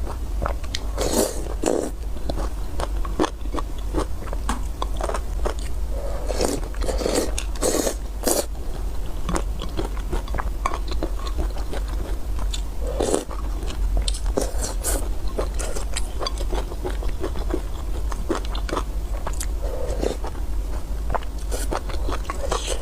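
Close-miked eating sounds of noodles in soup: wet chewing, biting and mouth clicks, irregular and continuous, with a few louder wet bursts.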